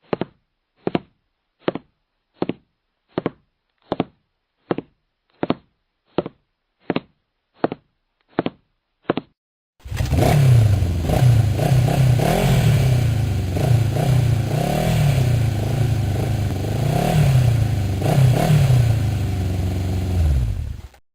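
About a dozen short, evenly spaced knocks, a little under one a second. Then an engine runs loud, its pitch rising and falling over and over, and cuts off suddenly near the end.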